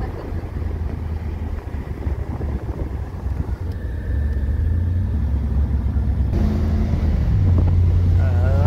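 Chevrolet Camaro IROC-Z's V8 engine and road noise heard from inside the cabin while driving. The low engine hum grows louder about four seconds in and again a few seconds later as the car picks up.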